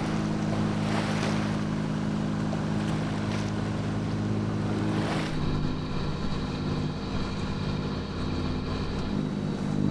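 A sailing yacht's inboard engine running steadily under way, with water rushing past the hull in occasional whooshes and some wind on the microphone. The engine note shifts about halfway through.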